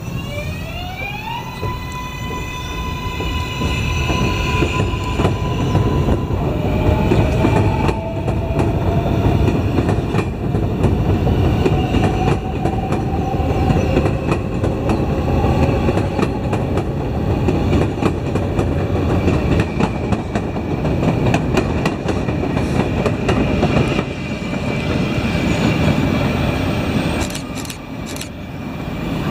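An R142A subway train accelerating out of the station. Its electric propulsion whine rises in several pitches at once as it pulls away, then settles into steady, slowly sliding tones over a loud rumble of wheels on the elevated steel track, which eases off near the end as the train moves away.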